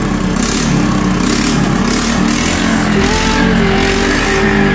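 Honda Dio scooter's single-cylinder engine running steadily through a modified aftermarket exhaust.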